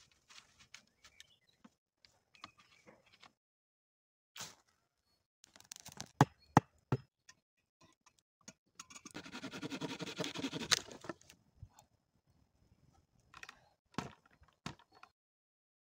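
Soft rustling of pine boughs, then scattered knocks of wood on wood as sticks and logs are handled and set down, with a cluster of sharp knocks about six seconds in and a couple of seconds of dense rough noise a little after the middle.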